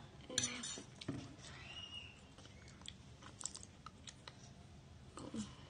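Close-up wet chewing and mouth sounds of someone eating spicy fried instant noodles, with scattered sharp clicks and a loud cluster of them about half a second in.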